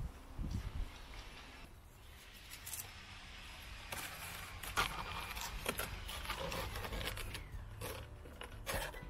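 Hand pruners snipping through zucchini stems, with leaves and stalks rustling and scraping as the fruit is cut from the plant. A few sharp snips come in the second half.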